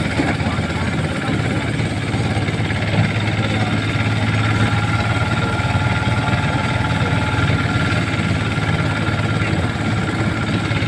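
Motorized rice thresher running steadily, a constant engine drone, while sheaves of harvested rice stalks are fed into its drum.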